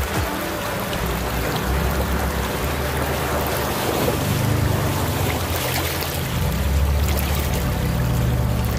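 Pickup truck driving through a shallow rocky creek: the engine hums low while the tyres splash through the water, loudest as the truck passes close about four seconds in. The creek's water runs throughout, and a second truck's engine grows louder near the end as it comes closer.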